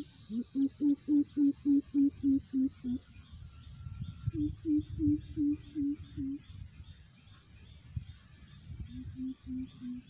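Greater coucal calling: three runs of deep, hollow 'boop' notes, about four a second, the last run shorter and lower in pitch.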